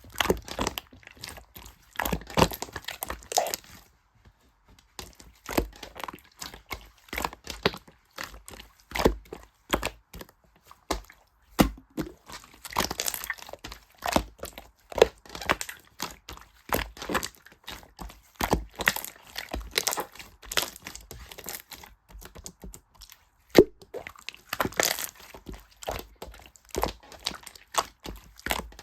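Close-up, irregular crinkling and crackling with many small sharp clicks and taps, as of material being handled near the microphone.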